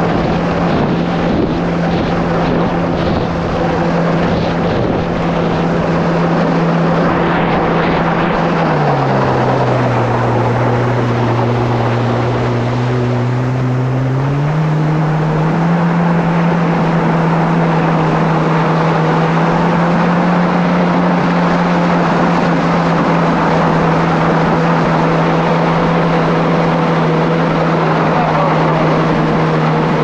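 Kawasaki SX-R 1500 stand-up jet ski's four-cylinder four-stroke engine running steadily at speed over a rush of wind and water. About nine seconds in the engine note drops as the throttle eases off, holds lower for about five seconds, then climbs back up and holds steady.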